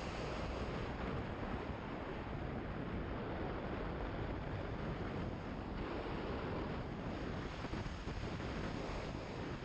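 Steady wind rushing over the microphone of a motorcycle-mounted camera while riding at road speed, with no clear engine note.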